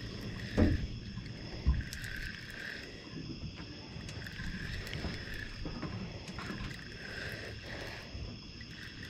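Spinning reel being cranked as a small hooked catfish is reeled in, with two low handling thumps in the first two seconds. A steady chorus of night insects runs underneath, swelling every couple of seconds.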